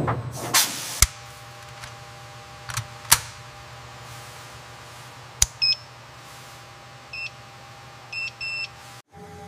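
Electronic test equipment beeping: four short two-tone beeps in the second half, two of them close together near the end, over a steady electrical hum. A short hiss comes near the start, and a few sharp clicks are the loudest sounds.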